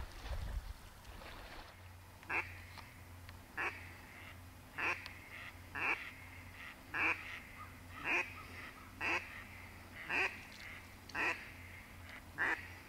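Duck quacking: a series of about ten short single quacks, evenly spaced about once a second.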